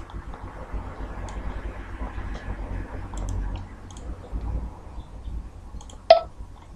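Scattered computer-mouse clicks over a steady low hum, with one louder sharp click about six seconds in.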